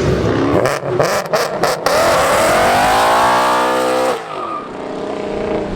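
Car engine accelerating hard, its pitch climbing steadily, then lifting off suddenly about four seconds in and settling to a lower, steadier drone. A few sharp cracks come in the first two seconds.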